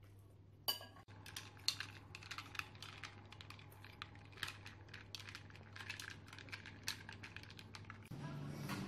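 A spoon stirring ice cubes in a tall glass of iced vanilla latte: a quick, irregular run of glassy clinks and ticks. Background music comes in near the end.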